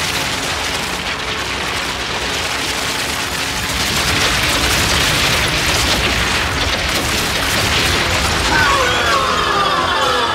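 Cartoon rumble of ground and ice cracking and bursting apart, a continuous crashing boom over dramatic music. About eight and a half seconds in, a loud wavering yell from a giant.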